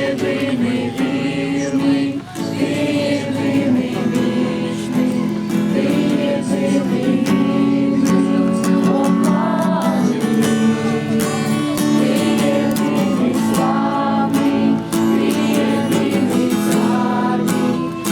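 A group of people singing together to a strummed acoustic guitar.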